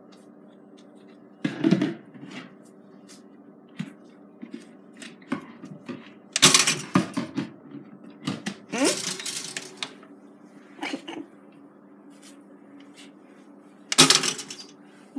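Pop-up toaster with waffles in its slots: scattered light metallic clicks and clinks over a low steady hum, with louder clattering clanks about six and a half seconds in and again near the end, just before the waffles are done.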